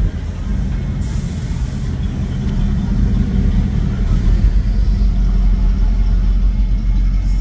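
Truck engine running with a steady low rumble, a little louder from about halfway through.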